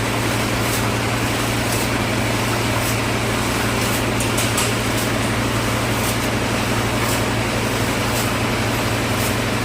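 Concrete mixer running steadily with a deep, even engine hum, with faint clicks about once a second.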